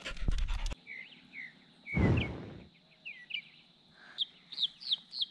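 Small birds chirping in a run of short, quick, downward-sliding calls over a faint steady high whine. A few sharp clicks come at the start, and a brief loud rush of noise comes about two seconds in.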